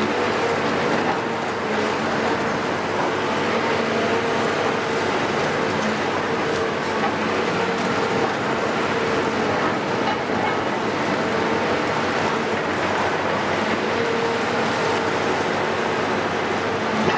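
Cat C15 diesel engine of a Caterpillar 374F UHD long-front demolition excavator running steadily under working load, with a steady whine that swells and fades.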